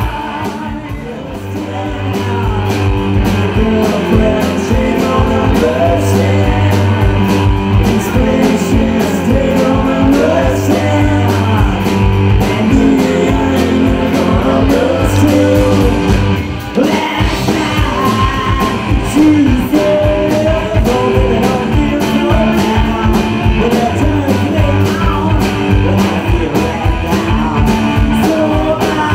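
Live rock band playing: sung lead vocals over electric guitar, bass guitar and drums, with a short break in the sound about halfway through.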